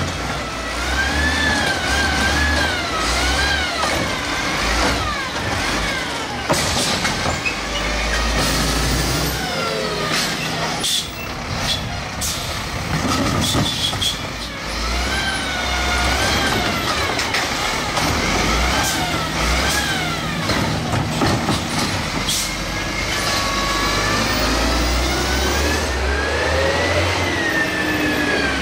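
Mini Rapid Rail side-loader garbage truck's engine revved in neutral, its pitch rising and falling over and over.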